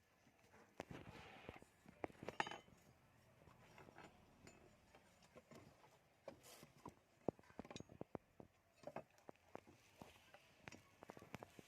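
Faint, irregular clicks and clinks of small hard parts and tools being handled, with a few sharper taps about two and a half seconds in and again about seven seconds in.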